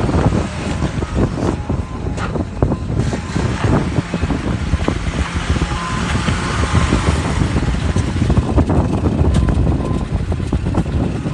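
M38A1 Jeep engine running as the Jeep drives over wet, muddy ground and comes close past, getting somewhat louder in the second half.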